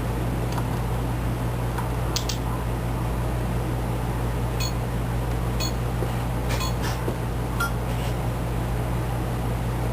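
Steady low electrical hum, with a few faint, scattered clicks.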